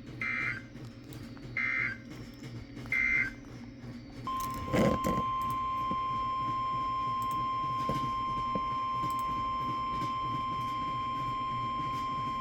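Three short data bursts of an Emergency Alert System SAME end-of-message code, each a fraction of a second long. Then, about four seconds in, NOAA Weather Radio's steady 1050 Hz warning alarm tone comes on and holds for about eight seconds. There is a brief knock just after the tone begins.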